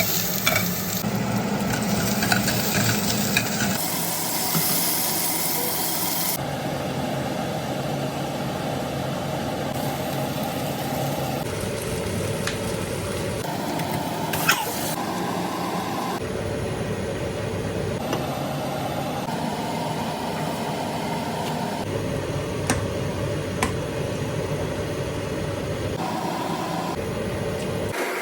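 Food sizzling and being stirred in a hot pan, with a few sharp utensil clicks. The sizzle changes abruptly every couple of seconds as one short cooking clip cuts to the next.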